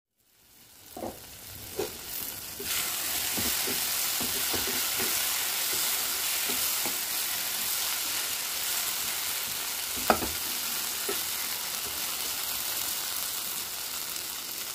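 Diced raw banana and potato frying in oil in a kadai, sizzling steadily while a wooden spatula stirs them. The spatula knocks against the pan now and then, sharpest about ten seconds in. The sizzle fades in at the start and grows louder a little over two seconds in.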